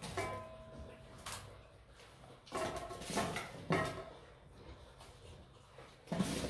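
Stainless steel dog bowls knocking and ringing as food is spooned into them on a tiled floor: a ringing clang near the start that hangs for about a second, clatter in the middle, and a sharp knock near the end.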